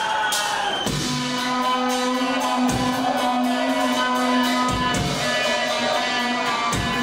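Nu-metal band playing live, heard from the crowd: a long held low guitar note over drums and rapid cymbal hits.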